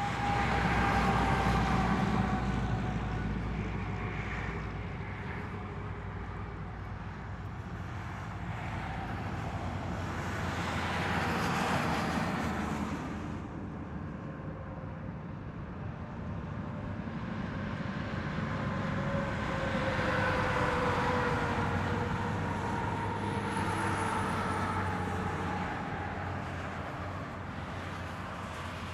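Highway traffic: vehicles passing one after another as a continuous rush of engine and tyre noise. It swells and fades about three times as nearer vehicles go by, their engine tones sliding down in pitch as they pass.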